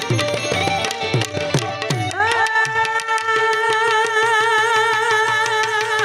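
Tabla drumming in a devotional bhajan, the bass drum's strokes sliding down in pitch, under a melody. About two seconds in, a long held note with vibrato begins and carries on over the drumming.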